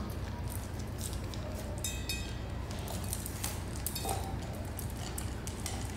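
Two puppies eating dry kibble from stainless steel bowls: many quick crunches and clicks of kibble and teeth against the metal bowls, with a short metallic ring about two seconds in.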